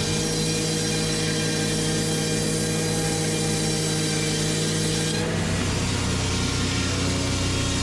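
Sawmill saw machinery running with a steady mechanical hum and a high hiss; about five seconds in, the hum changes pitch and the hiss drops away.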